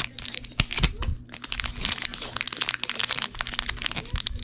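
Foil Pokémon booster pack wrapper being crinkled and torn open by hand, a dense run of irregular crackles.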